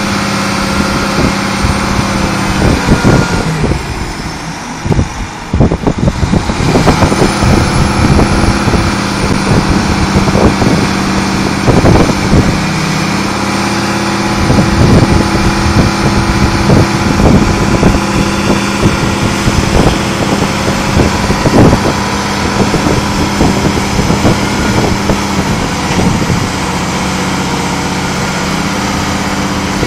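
Heavy winch truck's diesel engine running steadily under load while winching a 110,000 lb building up onto its trailer deck. The engine dips briefly about four seconds in and then picks back up, and irregular knocks and clanks come through over it.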